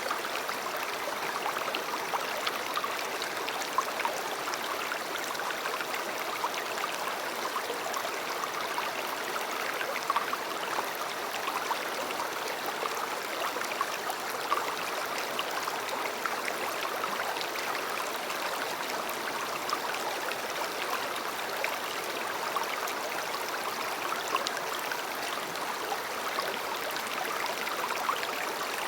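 A river flowing: a steady rush of running water with scattered small splashes.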